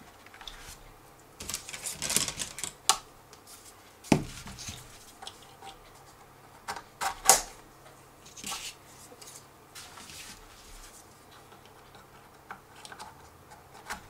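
Clicks and rattles of hard plastic as quick-disconnect prop guards are handled and pushed onto a DJI Phantom 3's motor arms by hand, coming in short bursts with pauses, with several sharp clicks.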